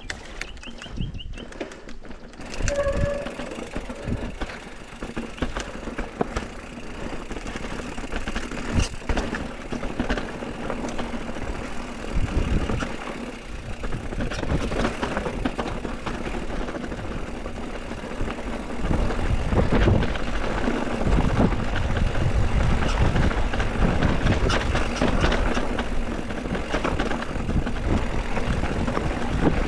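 Riding noise from a mountain bike on a trail: a steady rumble with scattered clicks and rattles from the bike over rough ground, getting louder about two-thirds of the way through.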